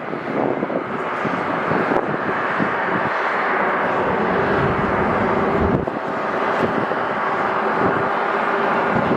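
Jet airliner passing close by, its engines making a loud, steady rushing roar.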